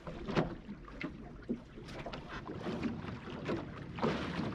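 Water slapping and splashing against the plywood hull of a small sailing skiff under way, in irregular knocks. About four seconds in, a louder, steady rush of wind and water takes over.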